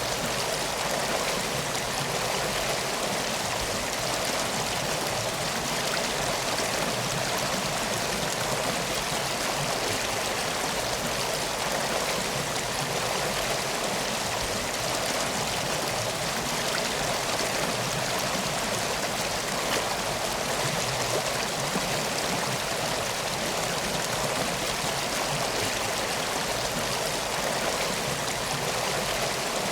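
Steady, even rush of water, unchanging throughout, like a flowing stream.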